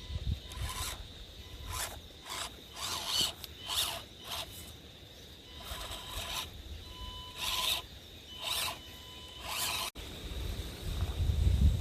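Axial SCX24 micro crawler driven in about ten short spurts over rock and dirt: its tyres scrabble and scrape, and in some spurts its small electric motor whines.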